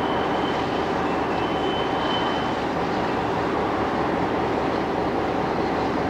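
Victorian Railways R-class 4-6-4 steam locomotive R766 moving slowly with its train, a steady rumble of train and yard noise. Two brief, thin high squeals come in the first half.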